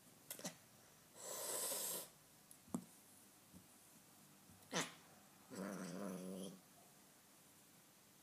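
Siamese cat hissing for about a second, then two short sharp spitting sounds, then a low growl lasting about a second near the end: an aggressive warning at the other cat.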